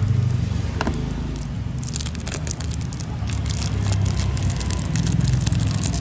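Handling noise as a new Zippo lighter is brought out: a single click about a second in, then a run of crackling and scraping from about two seconds in, over a steady low rumble of street traffic.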